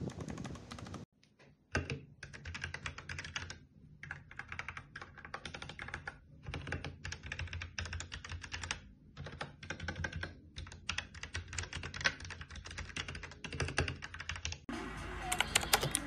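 Fingers typing on a mechanical keyboard: fast runs of plastic keystroke clicks with short pauses between bursts. There is a brief silent gap about a second in, and a louder, brighter clatter of typing near the end.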